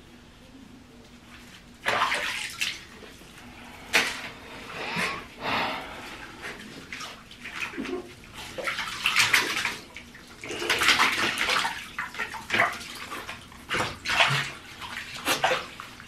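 Water splashing and sloshing in a bathtub as a small dog is washed by hand, in irregular bursts that start about two seconds in.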